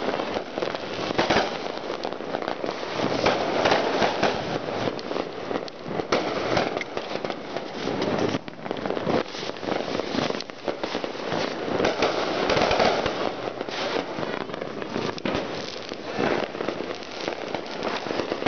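Many fireworks and firecrackers going off at once in a continuous crackling din of pops and bangs, rising and falling in loudness.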